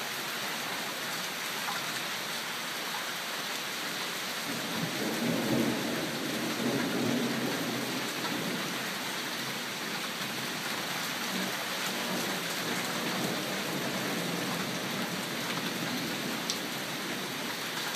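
Heavy rain falling steadily, with a low roll of thunder rumbling from about five seconds in until about nine seconds in.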